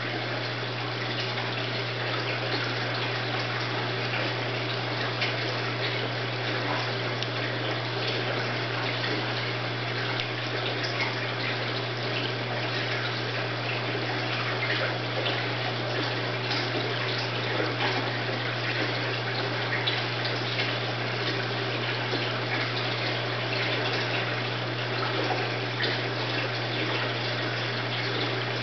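Steady running or trickling water over a low, steady motor hum, with faint scattered ticks.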